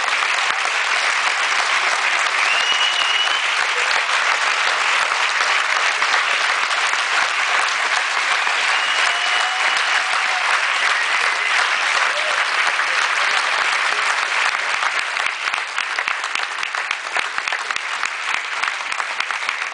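A large audience applauding heavily, with a couple of brief calls rising above the clapping, then thinning into scattered claps near the end.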